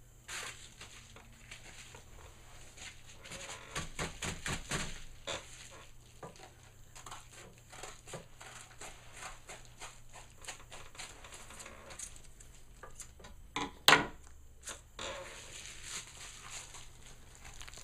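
Hands opening a mailed package: scattered rustling, scraping and small clicks of the packaging being handled and torn open, with one sharp knock about 14 seconds in.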